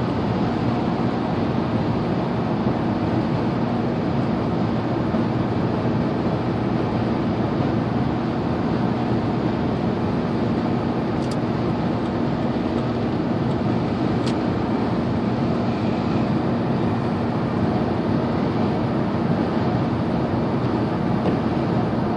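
Steady road noise inside a truck's cabin at highway speed, the tyres hissing on wet pavement, with a low steady engine hum underneath.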